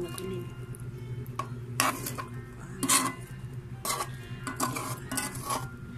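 A metal spoon stirring chicken adobo in a metal pan, with irregular scrapes and clinks against the pan about once a second. A steady low hum runs underneath.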